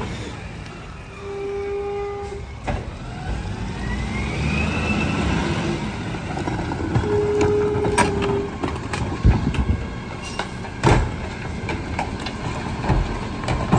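McNeilus rear-loader garbage truck running as it pulls up to the next stop, with a whine rising in pitch in the first half and two steady tones of about a second each. In the second half, sharp bangs and knocks as garbage carts are handled at the rear hopper.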